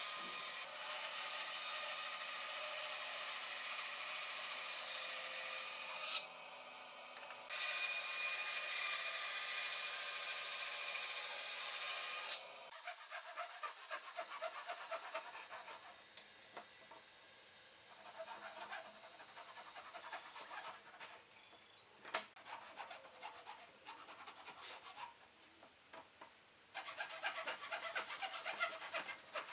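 Bandsaw running and cutting through a wooden board for about twelve seconds, with a short lull around six seconds in. It then gives way to a hand frame saw cutting back and forth through clamped boards in repeated strokes, which grow louder near the end.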